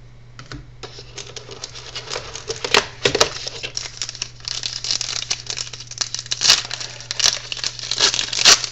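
Plastic packaging crinkling and rustling as sports trading cards and their packs are handled, starting about a second in and going on in a run of sharp crackles.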